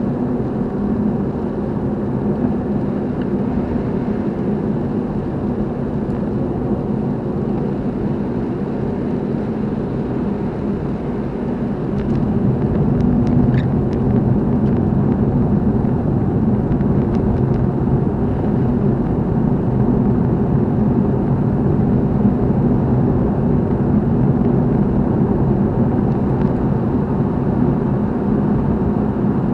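Steady engine and road noise of a car being driven, getting a little louder about twelve seconds in, with a few faint clicks shortly after.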